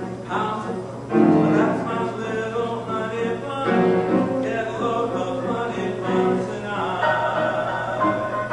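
A small mixed choir of men's and women's voices singing sustained chords in harmony.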